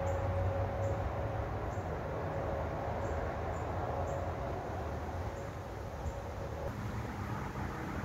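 Footsteps walking through dry fallen leaves on a trail, about one step a second, faint under a steady low rumble and hiss.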